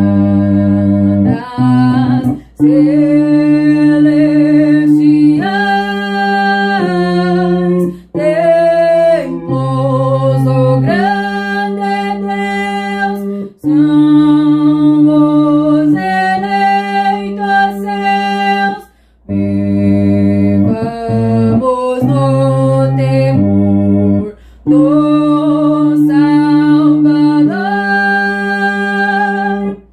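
A woman singing the bass part of a hymn in slow phrases of long, steady held notes, with short breaths between phrases.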